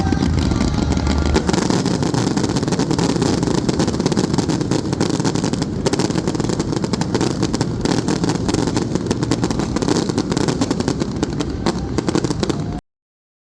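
Fireworks going off in a dense, continuous barrage of crackles and pops, loud throughout, cutting off suddenly near the end.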